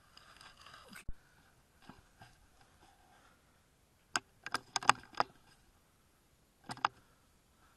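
Handling noise from a Tokyo Marui VSR-10 bolt-action airsoft sniper rifle: a brief rustle and a single click in the first second, then a quick cluster of sharp clicks and clacks about four seconds in, and two more close together near the end.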